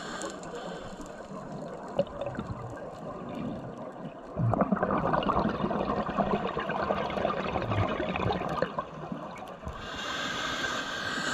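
Scuba diver breathing through a regulator underwater: a long burst of exhaled bubbles gurgling and crackling from about four seconds in until nearly ten seconds, followed by a steady hiss as the next breath is drawn through the regulator.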